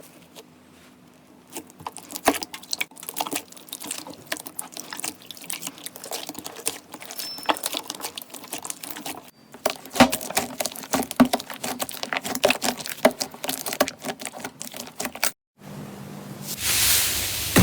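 Slime being pressed, squeezed and stretched by hand, making a dense run of small sticky clicks and crackles, broken by cuts about nine and a half and fifteen seconds in. Near the end a louder rushing hiss takes over.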